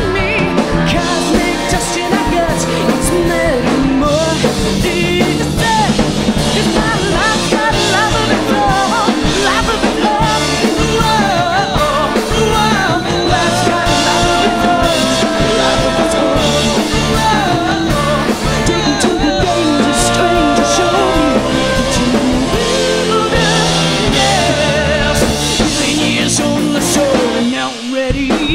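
Glam-punk rock band playing live, with drums, bass and electric guitars and a melody line that bends and wavers over them. The band drops out for a moment near the end, then comes back in.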